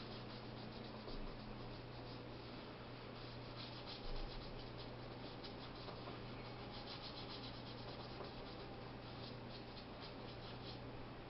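Paintbrush strokes rubbing on a stretched canvas: quick scratchy strokes that come in runs, over a steady low hum.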